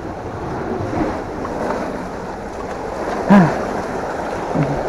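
Surf washing on a rocky shore, a steady rush mixed with wind on the microphone. A short low vocal sound with falling pitch comes about three seconds in, and a fainter one near the end.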